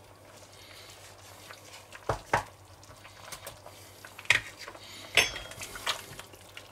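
Metal spoon clinking against a tin and a cast-iron Dutch oven as gravy powder is spooned onto a stew. There are a handful of sharp clinks: two close together about two seconds in, then more between four and six seconds.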